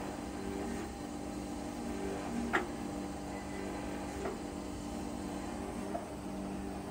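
Kikinda URB-1000-A surface grinder running with a steady hum of several tones while its cross feed moves at the slow feed rate. There is a short click about two and a half seconds in and a fainter one about four seconds in.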